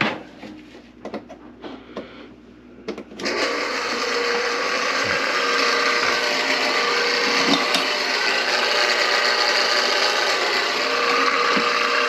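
A few knocks and clatters, then about three seconds in a small motor starts and runs steadily with a faint hum.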